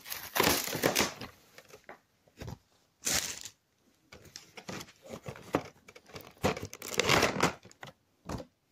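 Clear plastic blister packaging of a diecast model vehicle crinkling and crackling as it is handled and pried open. The sound comes in irregular bursts of crackles and clicks, loudest at the start and again near the end.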